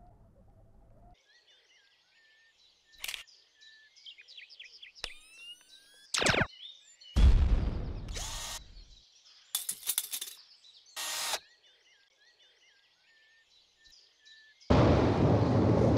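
Birds chirping, broken by a run of loud, short, harsh mechanical noises like a power drill. The longest lasts about two seconds, a little past the middle. A loud rushing noise starts near the end.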